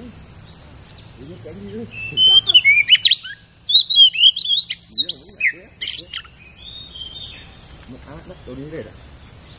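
Oriental magpie-robin singing a loud burst of fast, varied whistles and chirps for about four seconds, starting about two seconds in, with a short break in the middle. A steady high insect buzz runs underneath.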